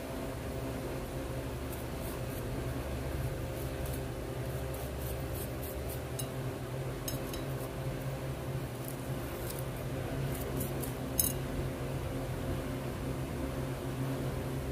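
A small brush scrubbing gold jewelry in a bowl of soapy water: faint scratchy clicks, with one sharper click about three-quarters of the way through, over a steady low hum.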